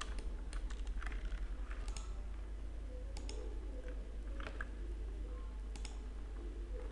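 Computer keyboard keystrokes and mouse clicks: sparse, irregular sharp clicks as keyboard shortcuts and mouse buttons are pressed, over a steady low hum.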